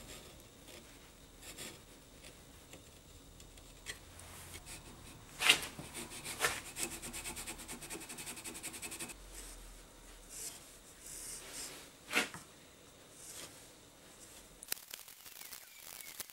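Hand tool scraping and cutting at a small wooden workpiece: scattered short scrapes, the sharpest about five and a half seconds in, and in the middle a run of fast, even rasping strokes.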